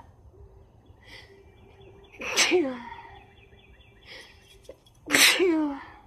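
A person sneezing twice, about three seconds apart. Each sneeze is a sudden loud burst that trails off in a falling voiced tail.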